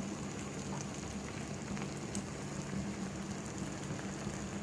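Thick milk-based pasta sauce bubbling and popping at a simmer in a nonstick pan as it thickens, a steady soft crackle with a few faint ticks. A steady low hum runs underneath.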